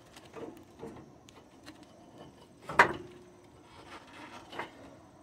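Light clunks and rubbing of metal parts as a front CV axle is worked into the steering knuckle and lower control arm, with one sharper knock a little before the middle that rings briefly and a smaller knock later.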